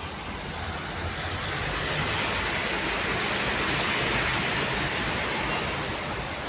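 Diesel truck engine running steadily at idle, heard from inside the cab, under broad traffic noise; a rushing hiss builds up over a couple of seconds and then eases off.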